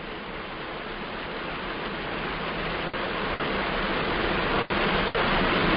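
Steady hiss with no tone in it, growing gradually louder, broken by a few brief cut-outs in the second half.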